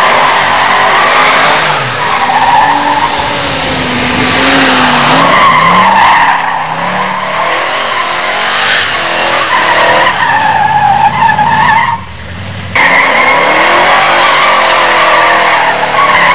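Late-1960s Ford Mustang doing donuts: the rear tires squeal in a long wavering screech while the engine revs up and down. The squeal breaks off for under a second about twelve seconds in, then picks up again.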